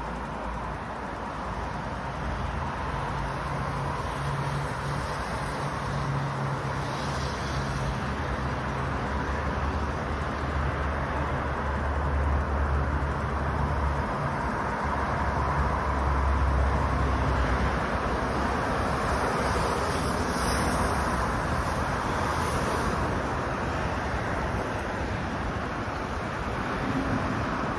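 Road traffic: a steady rush of passing vehicles with a low engine hum, loudest about halfway through.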